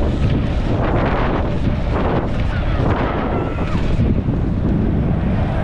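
Wind buffeting a helmet-mounted GoPro's microphone as a BMX bike races along the track, a constant low rumble with rushing swells that rise and fall.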